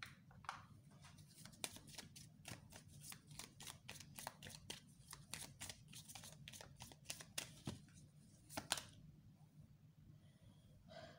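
Deck of oracle cards being shuffled by hand: a faint, quick run of card snaps, about four a second, ending with one louder snap a little before nine seconds in.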